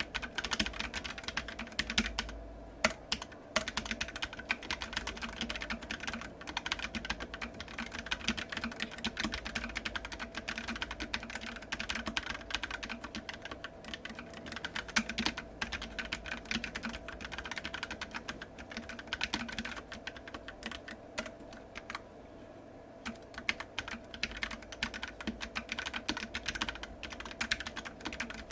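Continuous fast typing on a Keychron K3 low-profile keyboard with Gateron brown tactile switches: a dense run of light keystroke clicks with a short pause about three quarters of the way through. A steady computer fan hums underneath.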